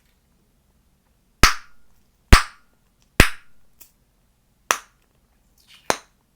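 Chewing gum snapped loudly in the mouth: five sharp pops at uneven intervals, the first three loudest.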